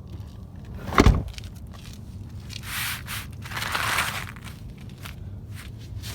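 Handling noise: a single loud thump about a second in, then two bouts of rustling and scraping.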